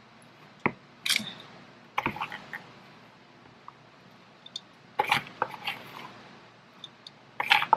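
Plastic measuring cup scooping stiff cookie dough and knocking against the mixing bowls: a few short scrapes and knocks, a second or more apart.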